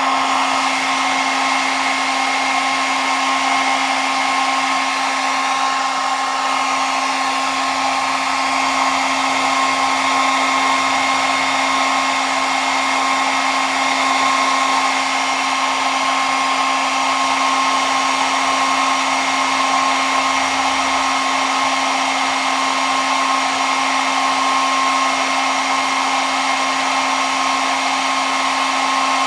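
Handheld hair dryer running continuously: a steady rush of blown air over a constant motor hum and a high whine, with no change in speed.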